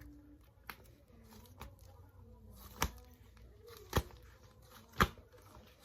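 A few sharp clicks or taps about a second apart, the loudest about five seconds in, over faint handling noise.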